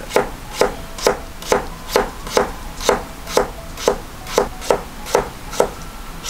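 Chef's knife slicing a halved, peeled new potato into thin slices on a cutting board: an even rhythm of knife strikes on the board, about two a second.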